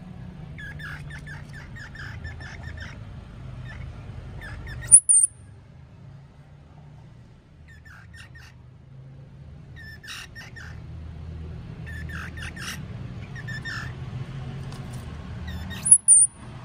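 Baby palm squirrels squeaking in quick clusters of short, high chirps. Twice, about eleven seconds apart, a much louder and very shrill chirp cuts in briefly, over a low steady hum.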